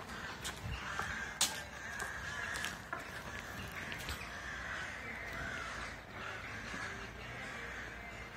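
A crow cawing repeatedly, a series of short harsh calls about one a second. A few sharp knocks come through as well, the loudest about one and a half seconds in.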